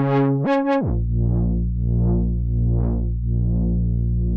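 Behringer Model D analog synthesizer playing a sustained bass tone. It jumps up in pitch, then slides down to a low held note about a second in. The tone's brightness swells and fades in slow repeating waves, about one and a half a second.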